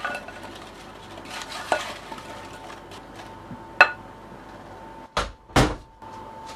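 Plastic slotted spoon stirring butter-coated apple slices in a glass bowl, with a few knocks of the spoon against the glass and one sharp ringing clink about four seconds in. Two short, louder scraping bursts follow a little after five seconds.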